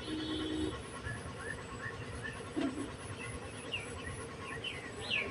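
A small bird chirping repeatedly in short, sweeping calls that grow louder toward the end, over a low steady rumble.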